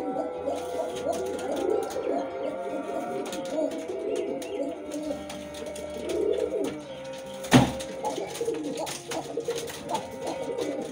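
Several Kaldom pigeons cooing over one another in a loft. One sharp knock stands out about seven and a half seconds in.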